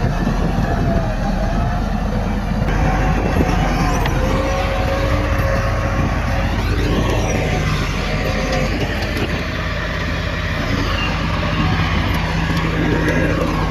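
Heavy diesel earthmoving machinery running steadily, with the engine note shifting in pitch about halfway through and again near the end.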